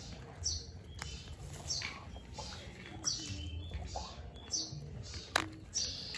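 Newly hatched bird chicks cheeping: short, high chirps falling in pitch, repeating about once a second. A single sharp click comes about five seconds in.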